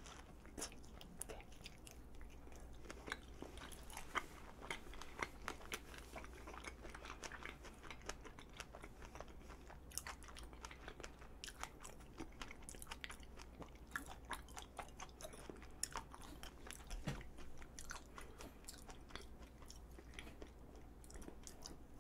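A person chewing and biting strawberry chapssaltteok, a soft glutinous rice cake wrapped around a fresh whole strawberry, close to the microphone. The sound is faint: a stream of small, irregular wet mouth clicks.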